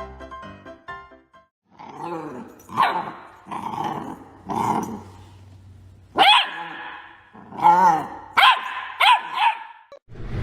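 A dog vocalising: a few drawn-out growly calls, then about five barks in quick succession over the last four seconds.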